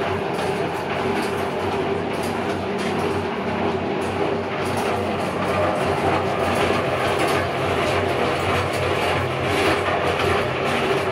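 Homemade electric cement mixer running empty: the electric motor drives the steel drum round with a steady hum and a light, irregular rattling clatter.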